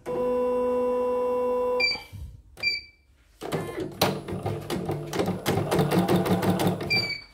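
CNY portable embroidery machine: after a steady tone lasting about two seconds, it beeps twice. It then runs its needle bar and stitch mechanism up and down with a fast, even mechanical rattle for about three and a half seconds, and stops with another beep.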